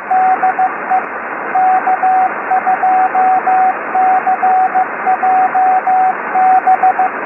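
Radio static hiss with a Morse code tone keyed over it in dots and dashes. The pattern spells out the amateur radio call sign K2CJB.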